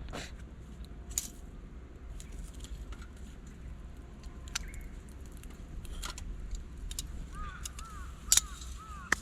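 Wind rumbling on the microphone, with scattered sharp clicks and knocks of camp gear being handled. About seven seconds in, a bird calls in a quick run of short rising-and-falling notes.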